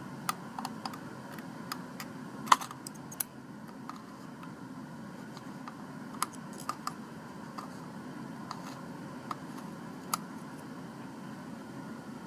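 Irregular light clicks and taps, a dozen or so, the sharpest about two and a half seconds in, over a steady low hum.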